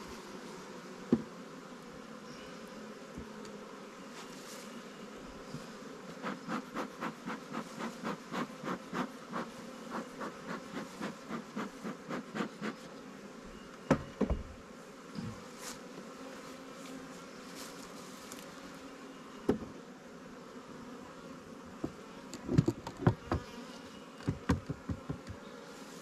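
Honey bees buzzing steadily around an open Langstroth hive. A rhythmic run of strokes at about three a second goes on for several seconds midway, and sharp knocks and clunks come as the wooden inner cover and then the metal-topped outer cover are set on the hive body, the last cluster near the end.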